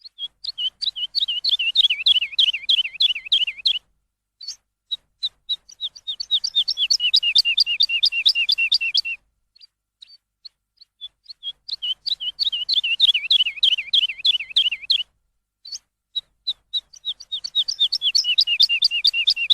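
A songbird singing long runs of rapid, repeated chirps, each run lasting a few seconds, with brief pauses between them broken by a few single notes.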